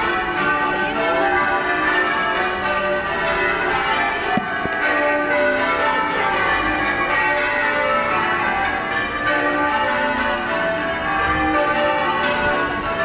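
Durham Cathedral's church bells being rung in changes: a continuous peal of many overlapping bell strokes.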